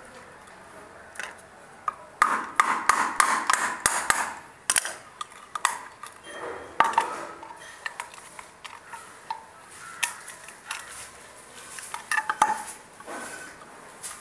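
A small wooden box being handled and worked with a metal hand tool on a concrete ledge: irregular knocks, clicks and short scrapes, busiest a couple of seconds in.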